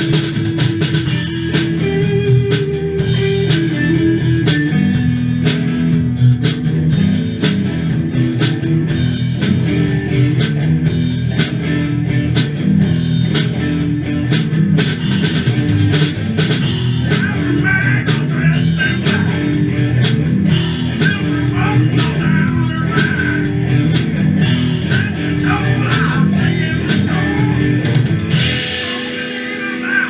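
Live rock band playing: electric guitars over a drum kit. About a second and a half before the end the low notes drop out briefly, leaving a cymbal wash, before the band comes back in.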